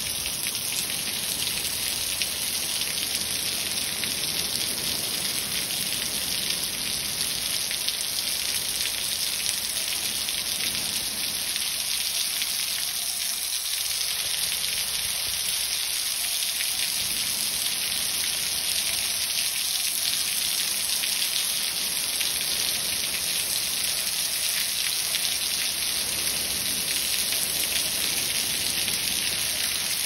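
Heavy rain pouring onto grass and a road: a dense, steady hiss.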